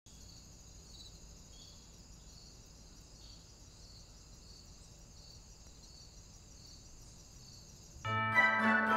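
Faint forest ambience: insects chirping in a high, steady trill with a pulse repeating evenly, over a low rumble. About eight seconds in, orchestral music starts abruptly and much louder.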